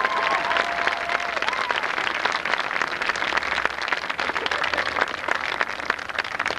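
Crowd in the stadium stands applauding, a dense steady patter of many hands clapping, with a few faint cheers near the start.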